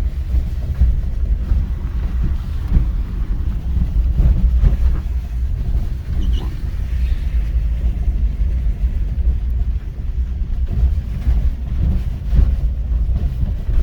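Road and engine noise of a 2006 Mitsubishi Pajero iO on the move, heard from inside the cabin: a steady, loud low rumble.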